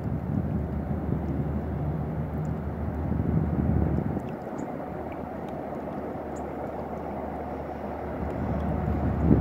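Distant rumble of a Metro-North train led by a GE Genesis P32AC-DM diesel locomotive passing across the river, with a low steady engine hum. The hum fades about four seconds in and comes back near the end.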